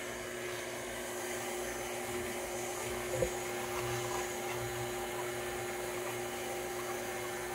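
Electric juicer running steadily with a hum while crushing celery, with one brief knock about three seconds in.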